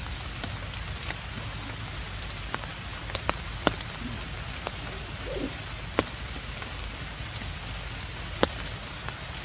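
Steady outdoor hiss with a handful of sharp clicks and taps as macaques pick rice out of a plastic bowl and off a stone slab.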